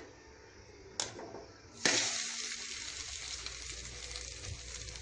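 A short knock about a second in, then the potato-and-egg omelette starts sizzling in hot oil in the kadai just under two seconds in, a steady sizzle that continues as its second side begins to fry.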